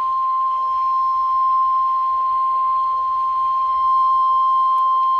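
NOAA Weather Radio 1050 Hz warning alarm tone: a single steady tone held without a break, with a faint hiss beneath. It is the weekly test of the alarm that automatically switches on weather radio receivers.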